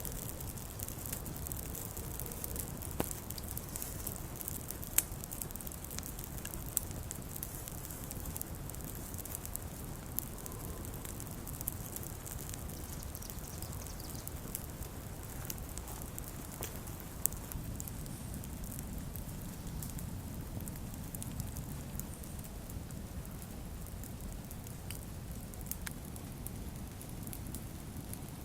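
Wood campfire crackling, with scattered sharp pops and snaps, the loudest about five seconds in and again about seventeen seconds in.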